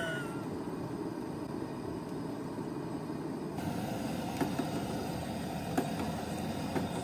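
Two-burner propane camp stove running with a steady rush of flame under its pots. There are a few light metallic clicks, the loudest near the six-second mark, as a metal spoon knocks the steel pot while eggs are lowered into the water.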